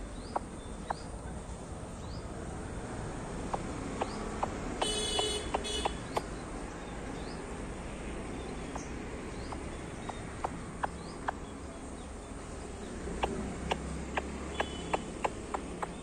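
Irregular sharp taps from a white-breasted waterhen pecking at a brick, over a steady outdoor background. A short high call comes about five seconds in.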